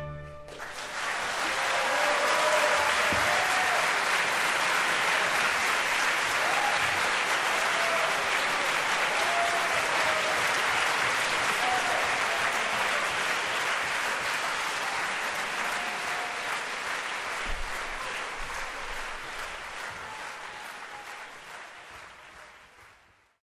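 Concert hall audience applauding at the end of an orchestral performance, building over the first couple of seconds and then fading out slowly toward the end.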